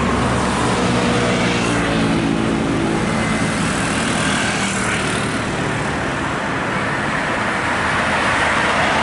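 Road traffic: a bus engine running amid steady tyre and road noise, its low engine hum strongest in the first three seconds. No horn sounds.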